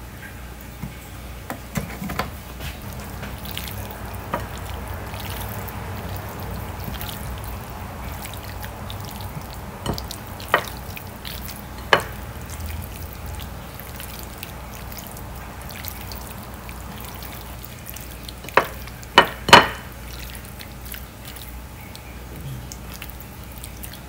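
Oil pouring from a glass bottle onto sliced raw beef in a ceramic plate, then the wet squishing of a hand mixing the meat in its marinade. Scattered sharp clicks and knocks sound throughout, the loudest a quick cluster of three about three-quarters of the way through.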